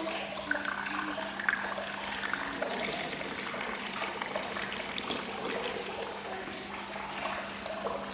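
Running water pouring and trickling steadily, with faint snatches of distant voices and a steady low hum underneath.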